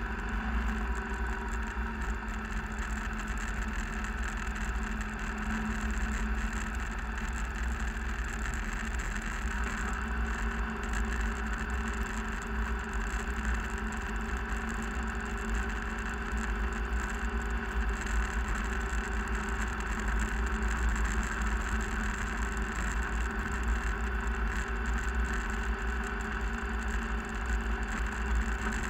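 Steady running noise of a vehicle driving on an unpaved gravel road, heard from inside the cabin: a constant deep rumble of tyres and engine with no change in pace.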